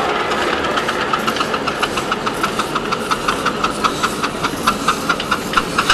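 Live-steam ride-on miniature steam locomotive chuffing as it runs, the exhaust beats coming about five a second and growing louder and sharper toward the end.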